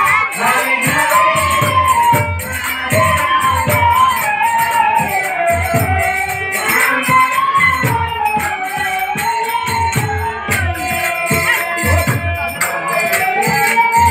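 Live kirtan devotional music: a singing voice carries a wavering melody over a steady beat of jingling percussion and low drum strokes.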